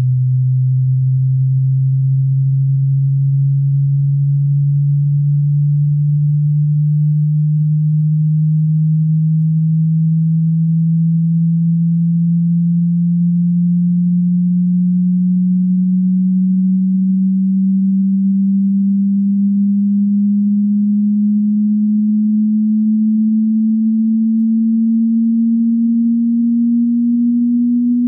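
Hearing-test tone: a single pure sine tone at constant loudness, low in pitch and gliding slowly and evenly upward by about an octave.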